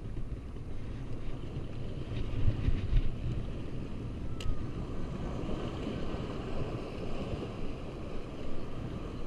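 Gusty wind buffeting the microphone over waves washing and splashing against jetty rocks, with one sharp click about four and a half seconds in.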